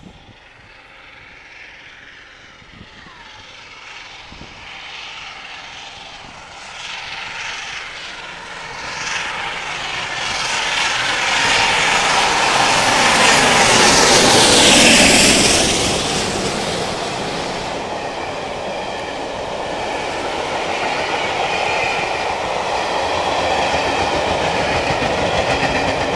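LNER A4 Pacific steam locomotive 60019 Bittern running through at speed with its train, growing steadily louder to its loudest just past halfway with a falling pitch as it goes by, then its coaches clattering past over the rails.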